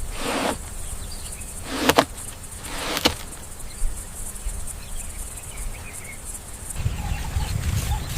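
Chickens clucking, with a few short flurries of noise in the first three seconds. A steady high insect hum runs underneath.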